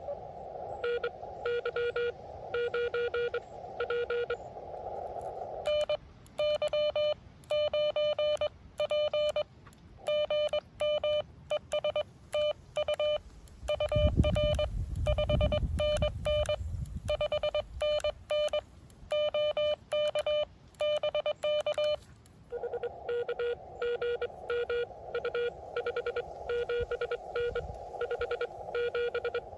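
Morse code on an amateur radio transceiver: a station's keyed dits and dahs heard through receiver hiss, then a cleaner, slightly higher tone keying for about sixteen seconds, the operator's own sending, then the hissy received signal again. A low rumble comes in about halfway through, over the sending.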